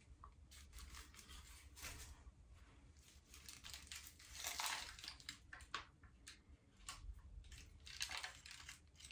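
Faint crinkling and rustling of aluminium hair-highlighting foils being unfolded by hand, in irregular short crackles, loudest about halfway through, as a foil is opened to check the lightened strand inside.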